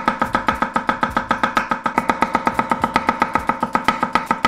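Chef's knife slicing onion on a wooden cutting board in rapid, evenly spaced strokes, about seven a second, each a sharp tap of the blade on the wood, over background music with guitar.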